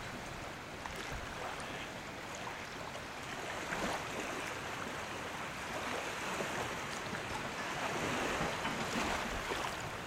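Lake water lapping against a wooden jetty, with wind blowing over the microphone.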